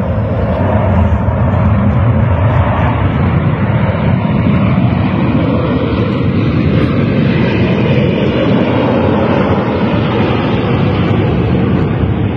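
A Boeing 737-800's twin CFM56 turbofan engines running loud and steady during the landing rollout just after touchdown, a deep jet rumble typical of reverse thrust.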